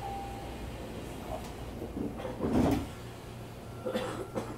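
Inside a Tokyu 3000 series train: a low steady hum of the car, with a loud thud and rattle about two and a half seconds in and a couple of sharper knocks near the end.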